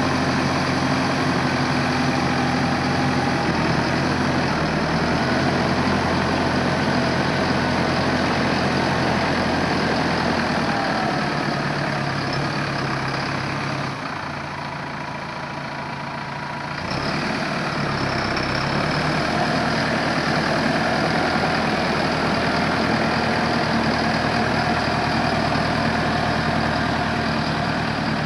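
2008 Massey-Ferguson 5480 tractor's 4.9-litre four-cylinder diesel running steadily as the tractor drives past at low speed; it grows quieter for a few seconds midway, then louder again.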